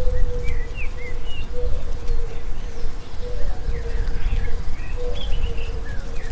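Wild birds chirping over a forest ambience, with a low steady note that comes back every second or two, like a dove cooing, and a constant low rumble underneath.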